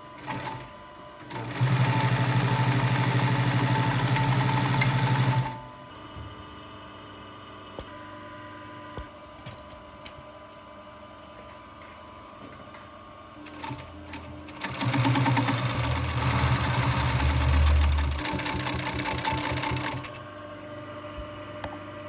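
Ivomaq industrial sewing machine stitching leather with a long stitch, in two runs of about four and five seconds. Between the runs it hums quietly.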